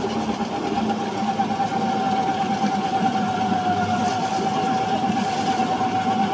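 Crawler compost turner's 130 hp engine running steadily as the machine straddles and turns a compost windrow, with a steady whine over the engine noise that dips slightly in pitch about four seconds in.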